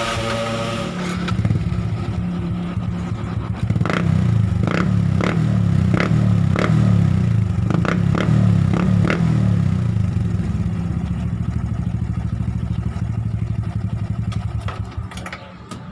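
Motorcycle engine running through an Apido aftermarket exhaust pipe with no steel wool packing in it, the baseline sound check. It runs steadily, with a quick run of sharp cracks from the pipe between about four and nine seconds in.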